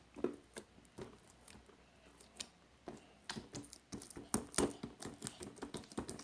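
Sticky homemade glue slime being squeezed and worked in the hands: irregular wet clicks and squelches, coming thicker and louder over the second half.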